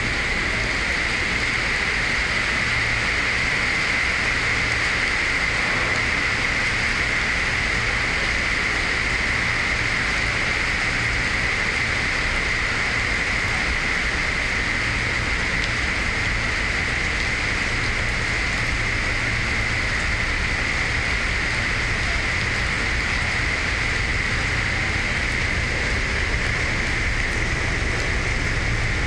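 Heavy rain falling on the platform and tracks: a steady, even hiss.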